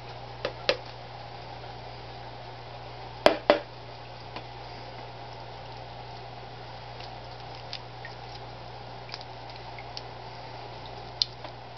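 Steady hum and water trickle of aquarium equipment, broken by a few sharp clicks, the loudest two close together about three seconds in.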